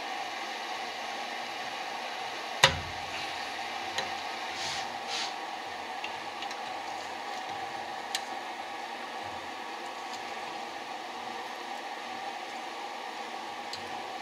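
Pliers working safety wire on a carburetor: a sharp metal click about two and a half seconds in, then lighter clicks and ticks, over a steady rushing background noise.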